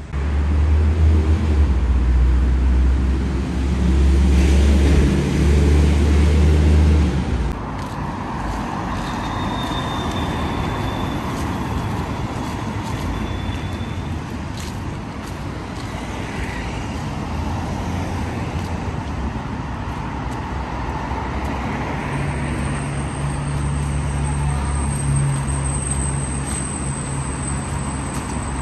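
City street traffic. A loud, low engine runs close by for the first seven seconds or so, then steady passing road traffic, with another low engine drone near the end.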